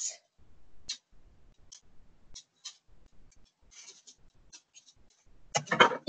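Faint, scattered clicks and light rustles of hands handling cut pieces of yarn and craft materials.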